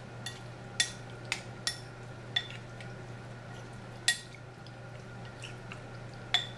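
A metal spoon stirring marinated chicken pieces in a glass mixing bowl, clinking against the glass with short ringing taps at irregular moments, about seven in all, the sharpest a little under a second in and again about four seconds in.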